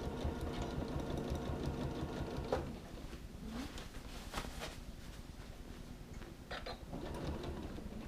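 Janome sewing machine stitching steadily, stopping about two and a half seconds in, followed by a few light clicks of handling.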